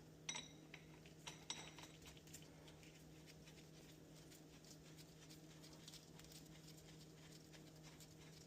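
Near silence: room tone with a faint steady hum and a few faint light clicks in the first couple of seconds.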